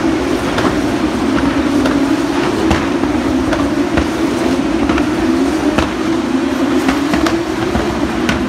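Formula 2 race car engines circulating, heard as a steady drone that sags slightly in pitch and climbs again near the end, with scattered sharp clicks.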